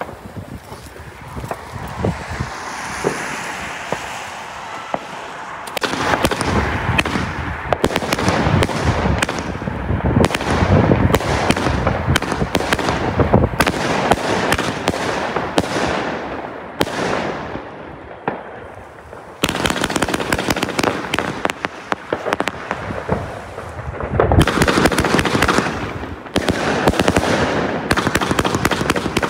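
Argento Goya 49-shot firework battery firing: an even fizzing for about the first five seconds, then the tubes go off in quick succession, each launch popping and the stars crackling overhead. There is a short lull about two-thirds of the way through before the shots pick up again.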